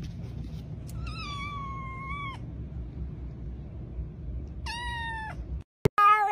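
A domestic cat meowing twice: two long meows about three seconds apart, over a low steady hum. The sound cuts out suddenly near the end.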